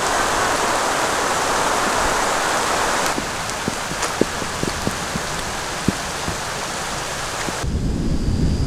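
Rain falling: a steady hiss of rain, then after about three seconds separate drops ticking close by. Near the end a low rumble comes in under it.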